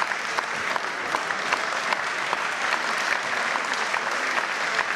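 Audience applauding: a steady clatter of many hands clapping.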